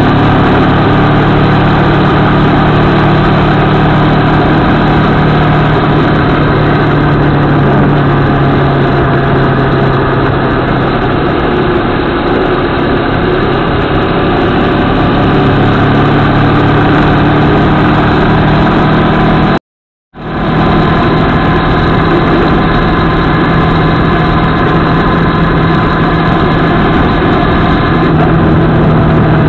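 CFMoto 650MT's parallel-twin engine running under way at a steady cruise, its pitch drifting gently lower and higher with the throttle, over a steady rush of wind and road noise. The sound cuts out completely for about half a second about two-thirds of the way through.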